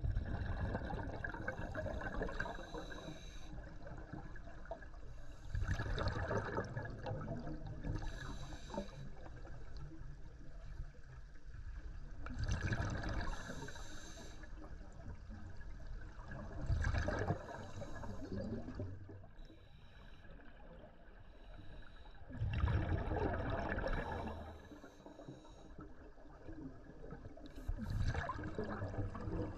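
Scuba breathing heard underwater: bursts of exhaled bubbles from a diver's regulator rumbling and gurgling past the microphone, recurring about every five seconds, with quieter water noise between breaths.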